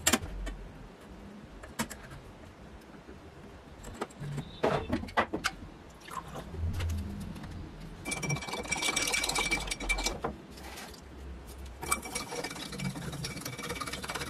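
Metal spoon stirring a white powder into water in a glass tumbler, scraping and clinking against the glass in two spells in the second half. Scattered taps and knocks of objects being handled come before it.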